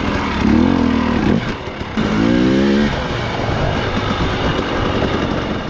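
Two-stroke 300 cc enduro dirt bike engine revving in two bursts, the second starting about two seconds in with a climbing pitch, over the bike's steady running.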